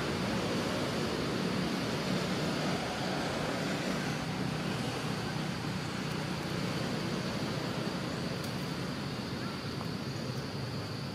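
Steady outdoor background noise: an even wash of sound with a thin, high insect drone running through it. No monkey calls stand out.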